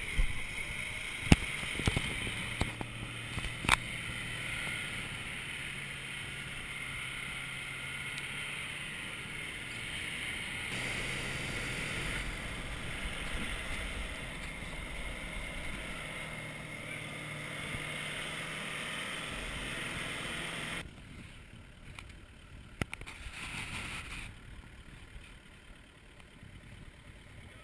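Four-wheel-drive vehicle driving over sand dunes, heard from a camera on its side mirror: the engine running steadily under wind rush, with two sharp knocks in the first four seconds. About 21 s in the sound drops suddenly to a quieter engine and wind.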